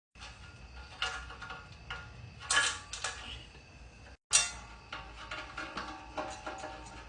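Background music of plucked, guitar-like notes, broken by two brief cuts.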